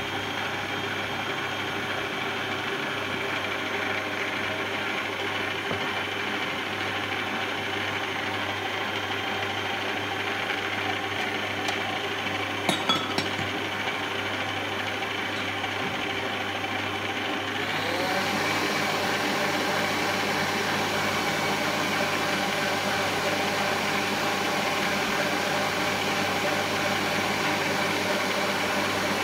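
Electric stand mixer motor running steadily, its dough hook working flour, milk and eggs into brioche dough. About eighteen seconds in the motor's pitch rises and it runs louder as it picks up speed. A few sharp knocks come shortly before.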